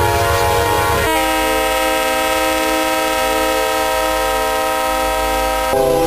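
Diesel locomotive air horns sounding. A short horn chord gives way abruptly about a second in to a different multi-note horn chord, which holds steady for over four seconds. Near the end it switches suddenly to another horn.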